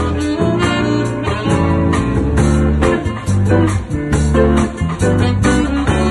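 A live band playing a bossa nova jazz tune, led by guitar over bass and a steady beat.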